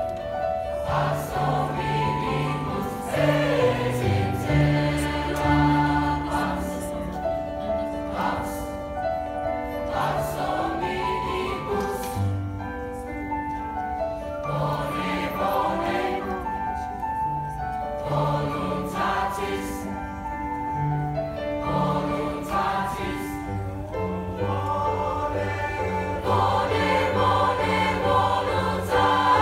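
Large mixed-voice high-school choir singing with piano accompaniment, sustained chords that swell louder near the end.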